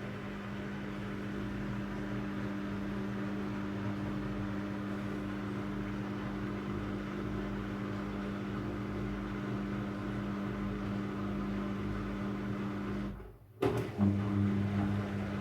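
Front-loading washing machine running with a steady motor hum during a quick wash of towels. Near the end the hum cuts out for about half a second, then starts again with a deeper hum.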